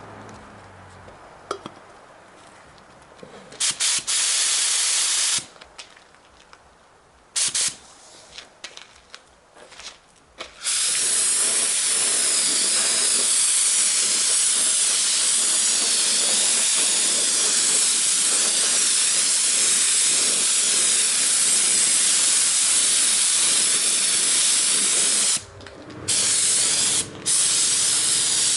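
Compressed air hissing from a pneumatic air tool: a few short blasts, then one long steady blast of about fifteen seconds, broken off briefly twice near the end.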